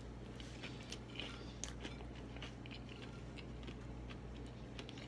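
A person chewing food close to the microphone: soft, irregular crunches and mouth clicks, over a steady low hum.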